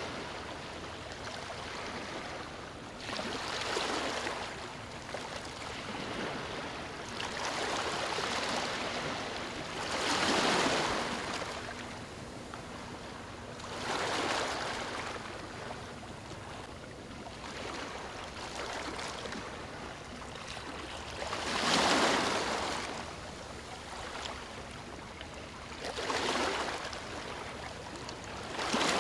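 Surf on a beach: waves breaking and washing up the sand, each one swelling into a hiss of foam and fading away, about every three to four seconds, with a few of the surges louder than the rest.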